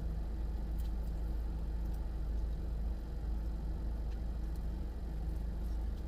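Steady low hum of a car idling with its air conditioning running, with a few faint clicks of eating and finger-licking.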